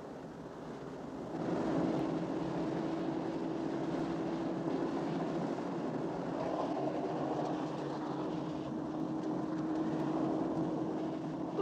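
Open-top car driving: a steady engine drone over wind and road noise, stepping louder about a second and a half in.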